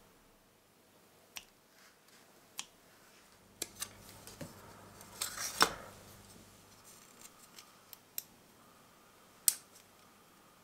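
Metal hobby tools and small plastic model-kit parts being handled: scattered light clicks and taps, with a louder cluster of sharp sounds a little past halfway and one more sharp click near the end.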